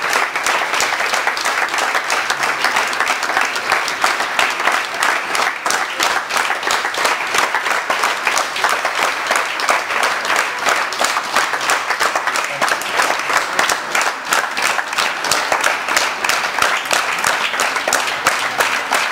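Audience applauding steadily, many hands clapping at once, for the cast's curtain-call bows.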